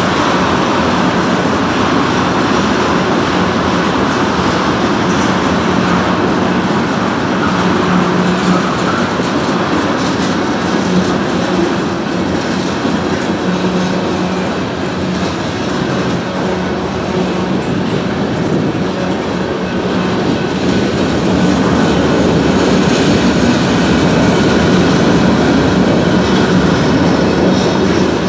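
Freight train of tank cars and covered hopper cars rolling past, its steel wheels clattering on the rails in a loud, steady rumble that runs without a break.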